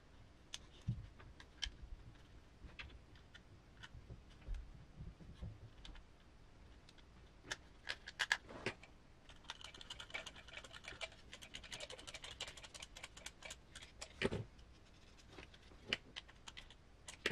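Faint, scattered clicks and taps of small plastic parts and screws being handled and fastened by hand during model assembly, with a denser run of clicking from about eight to thirteen seconds in.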